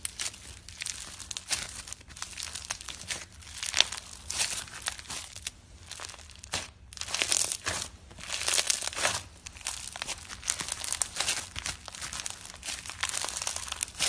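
Slime being squeezed, pressed and stretched by hand, giving dense sticky clicks and crackles that swell and ease unevenly.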